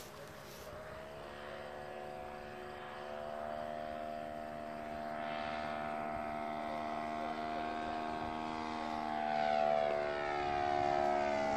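Model plane's 60cc two-stroke chainsaw engine running at steady throttle, growing louder as the plane closes in. Its pitch drops near the end as it passes overhead.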